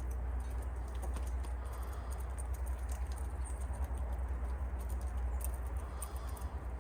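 Many light, irregular taps and clicks over a steady low rumble of wind on the microphone.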